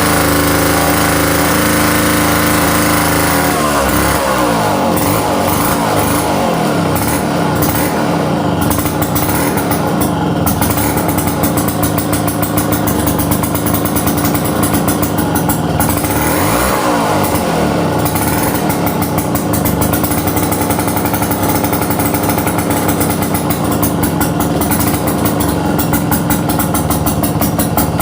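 McCulloch 5-49 two-man chainsaw's 130 cc two-stroke engine running, steady at first, then revving up about four seconds in; its pitch dips and climbs again around the middle.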